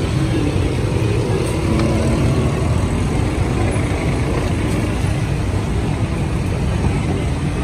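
Steady road traffic noise: car and motorbike engines running and passing, a continuous low rumble.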